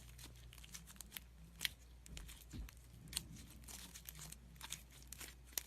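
Slime being handled and squeezed by hand, giving irregular soft crackles and sticky clicks, with a few sharper snaps and one dull thump.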